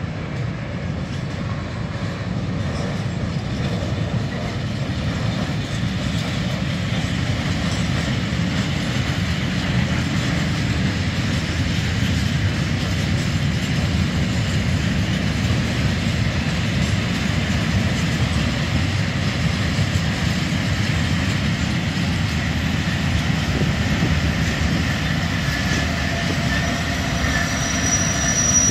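Train of open freight wagons rolling slowly past with a steady low rumble and clatter of wheels on the rails, pushed by a class 740 diesel locomotive whose sound grows louder near the end. A thin, high wheel squeal comes in during the last seconds.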